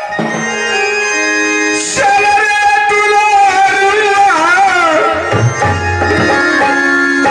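Live stage music for folk theatre: tabla strokes under sustained melodic tones.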